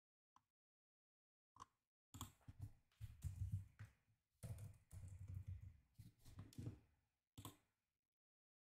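Laptop keyboard and trackpad being clicked and typed on. A few separate clicks come first, then a run of quick typing with dull low knocks through the desk for about five seconds, and one last click near the end.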